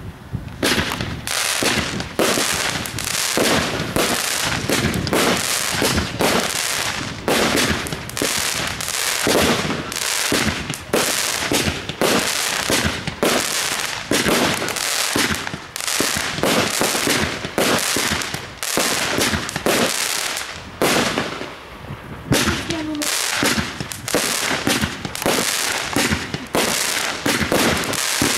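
Gaoo Kinetic 27-shot, 30 mm firework battery (cake) firing: a rapid, steady run of tube launches and aerial bursts, a couple of shots a second, with a short lull a little past the middle before the firing picks up again.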